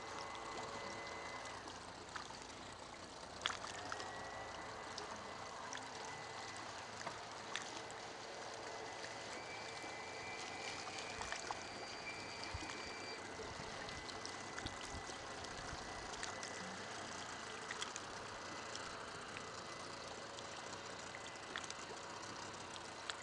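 Yamaha 50 outboard motor idling as the small boat moves slowly, with water lapping and trickling against the hull. A few light clicks and knocks, the loudest about three and a half seconds in.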